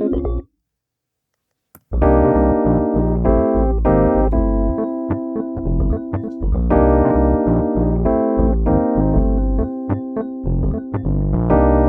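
Rhodes V8 Pro virtual Rhodes electric piano playing chords over bass notes. One phrase stops about half a second in, and a new passage starts about two seconds in and runs on.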